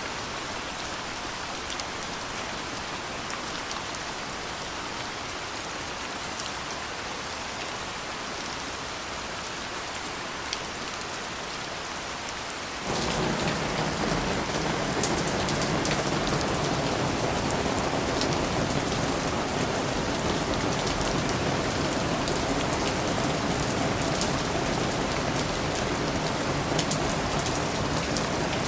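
Steady rain falling, a dense patter of drops. About 13 seconds in it changes abruptly to a louder, fuller rain that stays steady.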